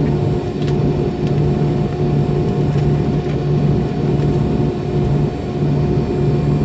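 Steady drone of the MD-90's IAE V2500 jet engines at idle before the takeoff spool-up, with a low rumble and a constant hum, heard inside the cabin.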